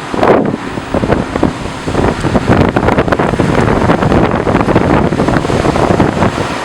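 Strong storm wind gusting and buffeting the microphone: a loud, rough rushing noise with many irregular crackles.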